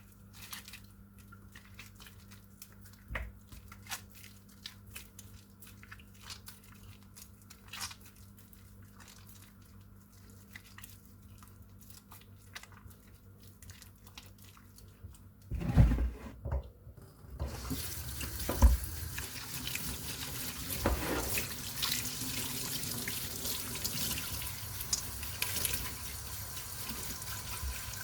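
Scattered soft clicks and taps, then a couple of louder knocks about halfway through, after which a water tap runs steadily into a sink for the rest of the time.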